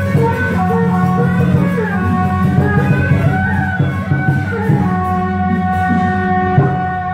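Music playing: a melody over steady, held instrumental notes.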